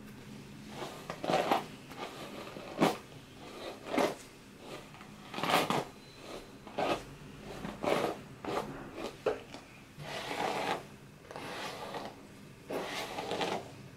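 Hairbrush strokes through long hair: short brushing swishes at an uneven pace of about one a second, a few of them drawn out longer near the end.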